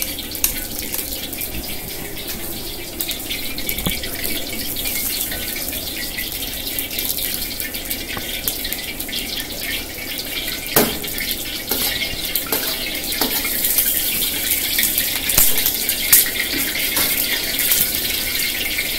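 Kitchen tap left running, water splashing steadily into a sink, with a few sharp knocks partway through.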